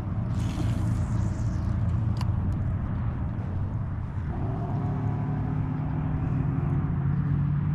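A motor engine running steadily, its pitch rising a little about four seconds in.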